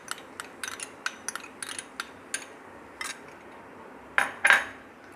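Wooden spatula scraping and tapping against a frying pan while working a thick onion and poppy-seed masala: quick light clicks at first, then two louder, longer scrapes near the end.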